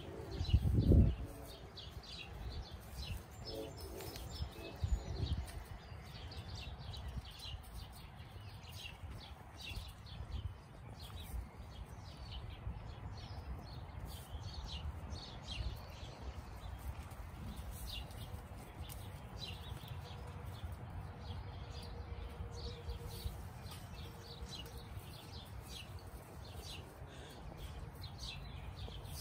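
Wild birds chirping over a steady low rumble, with a loud low bump about a second in.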